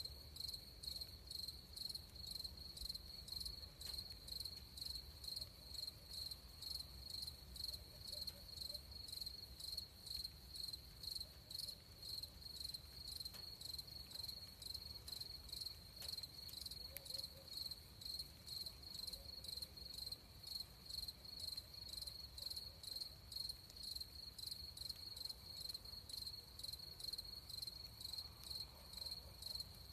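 Crickets chirping in an even, steady rhythm, a few high-pitched chirps a second, with a faint low rumble beneath.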